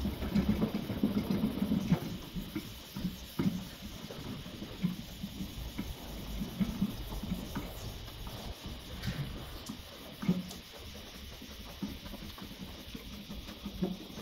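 A hand rubbing across a primed car body panel: uneven scuffing with scattered light taps, busiest in the first couple of seconds.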